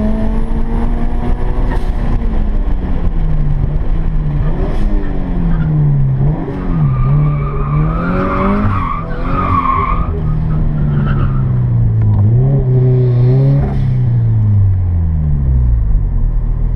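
Turbocharged Scion FR-S's 2.0-litre flat-four engine heard from inside the cabin, its pitch rising and falling over and over with the throttle through an autocross course. The tyres squeal about halfway through, and the revs sink near the end.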